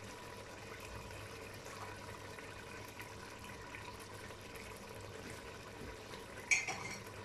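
Chicken curry simmering in a stainless steel pot with yogurt just added: a faint, steady bubbling hiss. A brief sharp click comes about six and a half seconds in.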